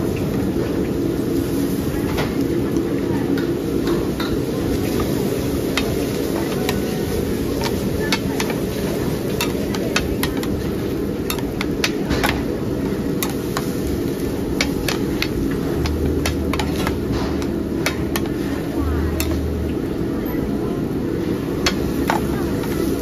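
Cooking utensils knocking and clacking irregularly at a street-food stall, over a steady low background din.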